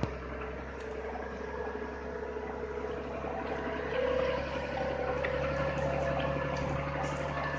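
Massey Ferguson 3085 tractor engine running steadily under load while pulling a plough, its note stepping up slightly about halfway through.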